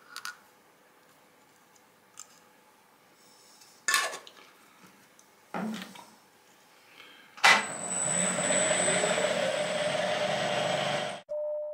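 A few light metal clinks and a knock at the milling machine's tap and workpiece, then a motor starts with a knock and runs loudly and steadily with a high whine for about four seconds before cutting off suddenly.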